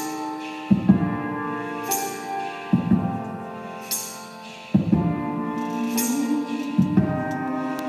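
Live instrumental music: sustained electric keyboard chords over a slow looped beat. A deep drum hit falls about every two seconds, alternating with a bright, high shimmer.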